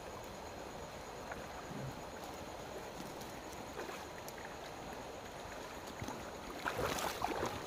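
Steady hiss of water running over a shallow stream bed, with faint scattered ticks. Louder scuffling and rustling come in near the end.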